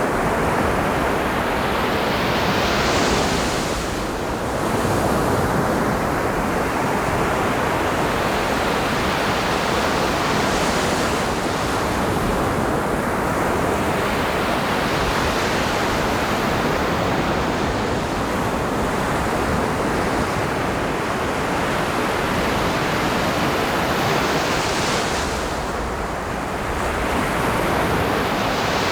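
Ocean surf: waves breaking and washing up a beach in a steady rush, swelling louder and hissier as a wave comes in every several seconds.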